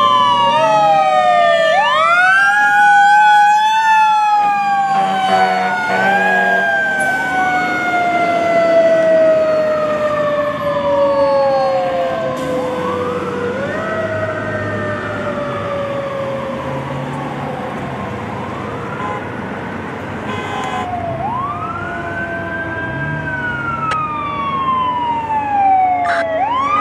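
Fire engine sirens sounding as the engine responds to a call. One siren rises quickly and then winds down slowly, again and again. In the first few seconds a faster wailing siren sounds over it.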